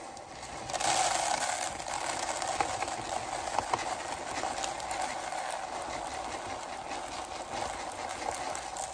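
Rice Krispies cereal pouring from its box into a clear plastic container: a steady rush of dry grains landing on the plastic and on each other, with scattered small ticks. It starts about a second in.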